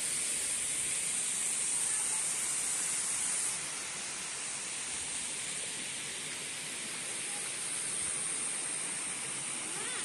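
A steady, even outdoor hiss, strongest in the high range, easing slightly about three and a half seconds in.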